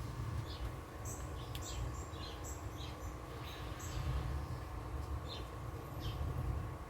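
Birds chirping: short high chirps, several a second at irregular intervals, over a steady low rumble.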